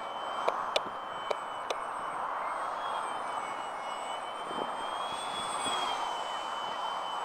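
Radio-controlled Edge aerobatic model plane in flight, its motor and propeller giving a thin high whine that rises and falls slightly in pitch over a steady hiss. A few sharp clicks sound in the first two seconds.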